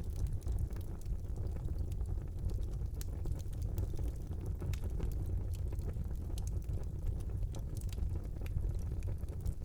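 Wood fire burning in a fireplace: a steady low rumble of the flames with frequent small, sharp crackles and pops scattered throughout.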